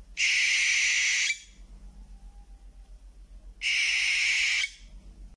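Owl screeching: two harsh, hissing screeches of about a second each, the second coming roughly three seconds after the first.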